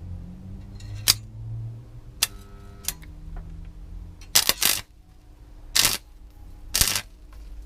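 Stick arc welder striking an arc on metal again and again: about six short, sharp bursts, the longest about half a second, each cutting off quickly as the arc fails to hold. A low steady hum runs underneath.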